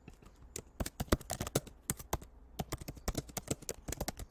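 Typing on a computer keyboard: a quick, uneven run of keystroke clicks with short pauses between words.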